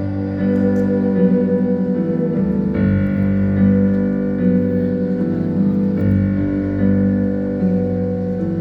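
Live band music: a slow instrumental passage of sustained piano or keyboard chords with guitar, between sung lines.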